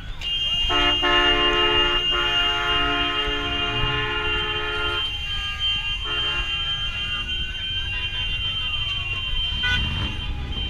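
Car horns honking: one held for about four seconds, then a shorter honk a second later. A siren wails, rising and falling slowly, underneath.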